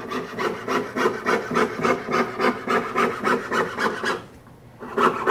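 Jeweler's saw cutting a stamped silver cross out of a sheet held on a wooden bench pin, the fine blade rasping in quick, even up-and-down strokes. The sawing stops for about half a second near the end, then picks up again.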